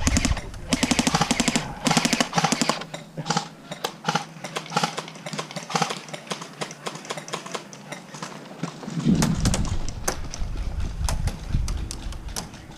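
Airsoft electric guns firing rapid full-auto bursts of evenly spaced shots in the first few seconds, then scattered single shots. A low rumble about nine seconds in.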